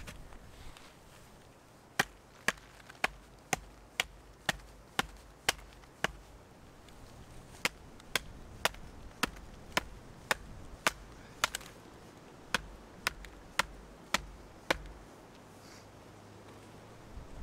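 Off-camera hatchet strikes on wood, sharp and evenly paced at about two a second: a run of about nine, a short pause, then about fourteen more.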